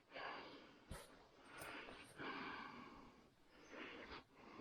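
A person's faint breathing close to the microphone, several slow breaths in and out, with a faint click about a second in.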